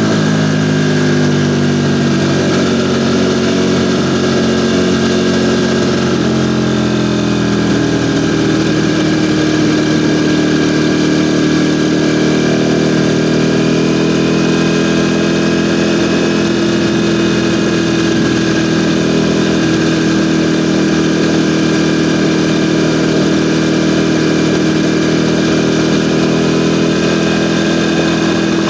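Ducati Panigale V4's V4 engine running loudly, its pitch shifting and dropping over the first several seconds, then holding steady.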